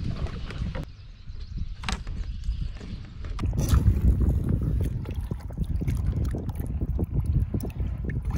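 Water lapping against a boat hull with wind on the microphone. About three and a half seconds in it turns louder and busier: water sloshing and splashing at the hull's waterline as a bass is lowered into the lake by hand.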